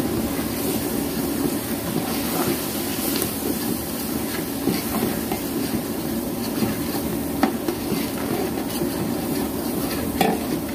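Bulk cooking at a large pot: a steady low rumble with faint sizzling, broken by scattered light clinks and knocks of utensils, a few of them sharper.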